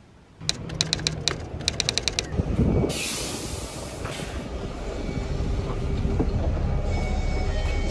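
Train noise at a platform while stepping aboard: a quick run of sharp clicks about a second in, a hiss a couple of seconds later, then a steady rumble that grows gradually louder.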